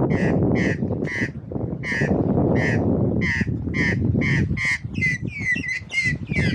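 Australian magpie squawking at close range: a run of short, harsh calls repeated about twice a second, then a few warbling, gliding whistled notes near the end. Steady low background noise runs underneath.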